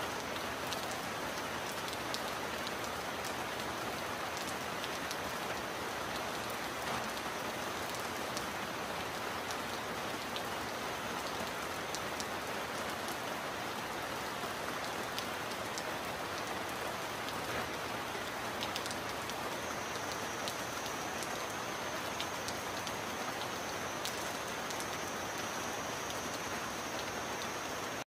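Steady heavy rain, with sharp individual drop ticks now and then.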